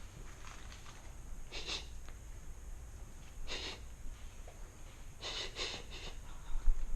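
A person breathing close to the microphone: a few short, noisy breaths about two seconds apart, two in quick succession near the end, over a low rumble.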